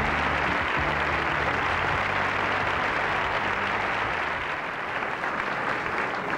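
A large audience applauding steadily, with music fading out beneath it over the first few seconds.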